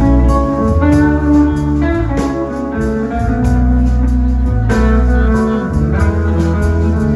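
Live band playing a slow blues-rock passage, guitar to the fore over bass and drums, with regular drum hits and strong bass.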